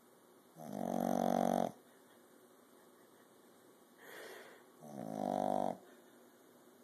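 Puppy snoring while asleep: two pitched snores, each about a second long and about four seconds apart, the second preceded by a softer breath.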